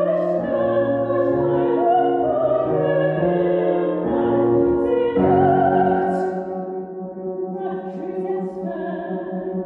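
Background music: slow classical music with an operatic singing voice over sustained chords, growing softer in the last few seconds.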